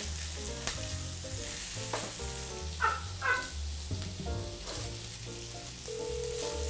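Sausage sizzling in a cast-iron skillet while a wooden spoon stirs it. Near the end a single steady phone ringing tone sounds for about two seconds over speakerphone.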